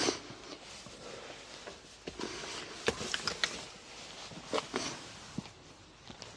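Gear being handled close to the microphone: a string of sharp clicks and knocks, several bunched together about three seconds in and a few more near five seconds, over light rustling.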